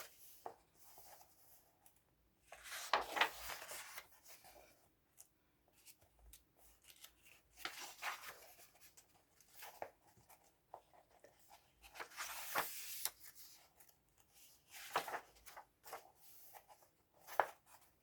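Pages of a glue-bound paperback colouring book being turned one after another, thin paper rustling and swishing with each turn, about six turns a few seconds apart.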